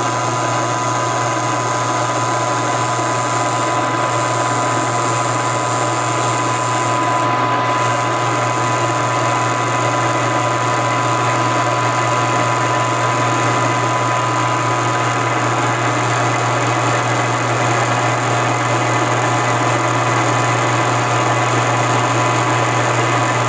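Milling machine running steadily with no cut, its spindle motor and drive giving a constant hum with a thin whine as the 3/4 inch ball end mill spins freely.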